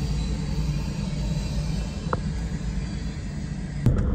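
Car cabin noise while driving: a steady low road and engine rumble, with a sharp click near the end.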